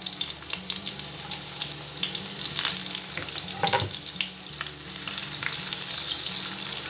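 Sliced onion sizzling and crackling in hot vegetable oil in a nonstick frying pan over medium heat. More pieces are tipped in from a wooden cutting board, then stirred and pushed around with a spatula.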